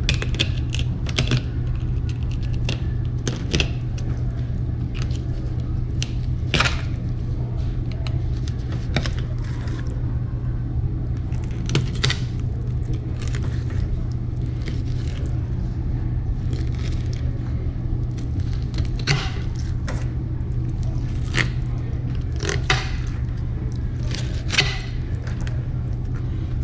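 Irregular scrapes and clicks of crappie being scaled and cleaned, over a steady low rumble.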